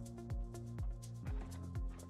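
Background electronic music with a steady kick drum at about two beats a second over sustained bass notes.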